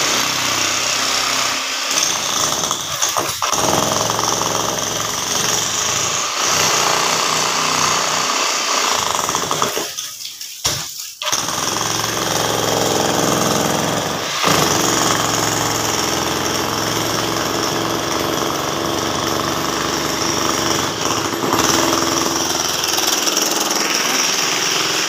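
Handheld demolition hammer breaking hard adobe ground, its chisel hammering continuously with a few short breaks, the longest about ten seconds in.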